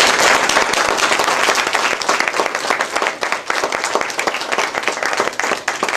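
Audience applauding, a dense patter of many hands clapping that is loudest at the start and slowly tapers off.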